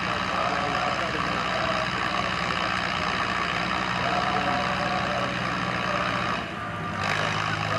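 Farm tractor's diesel engine idling steadily, dipping briefly about six and a half seconds in.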